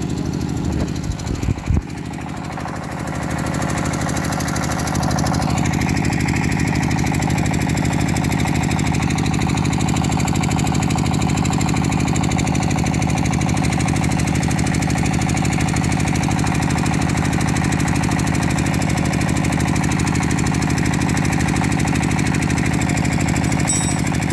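Engine running steadily with a rapid, even beat, a little louder from about five seconds in. Two or three sharp knocks come near the start.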